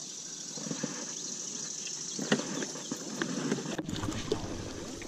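Scattered knocks, clicks and rustling from someone moving about and handling gear in an inflatable raft, over a steady hiss, the handling getting busier from about two seconds in.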